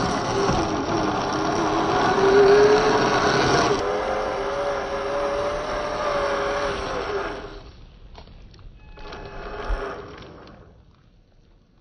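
Electric motor and gear drivetrain of a 1/10-scale Traxxas TRX-4 RC crawler whining under power over a gritty rustle. The whine climbs a little in pitch about four seconds in and stops about seven and a half seconds in, leaving only faint ticks and scrapes.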